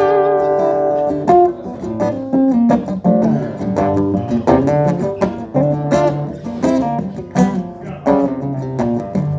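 Acoustic guitar playing an instrumental passage of picked single notes and strummed chords, ending on a chord left to ring.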